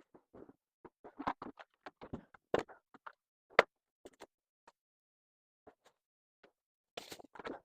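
Small household items being picked up and set down while a stand is cleared: a run of irregular knocks and clatters, the sharpest about three and a half seconds in, with a short burst of rustling near the end.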